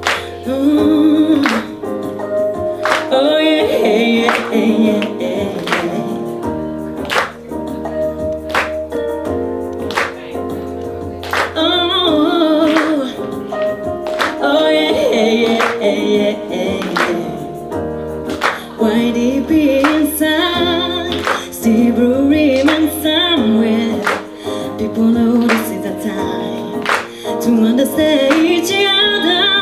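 A woman singing live into a handheld microphone over instrumental accompaniment with a steady beat and sustained chords.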